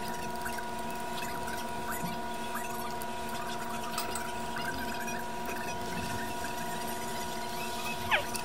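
Steady electrical hum made of several fixed tones, under faint scratching and small clicks of a circuit board being cleaned of corrosion. A short squeak falls sharply in pitch near the end.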